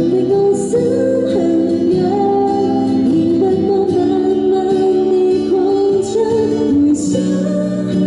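A woman singing a slow pop ballad live into a handheld microphone over instrumental accompaniment, amplified through a PA.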